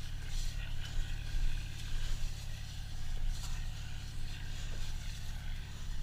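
A steady low motor hum, with wind rumbling on the microphone.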